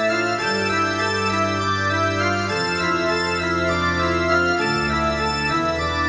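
Music: slow, sustained organ-like keyboard chords, each held about two seconds before changing to the next.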